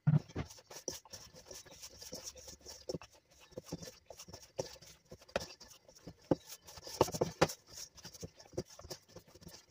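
Hands kneading floured dough in a stainless steel bowl: irregular soft slaps and scrapes of dough against the metal, with a louder knock right at the start.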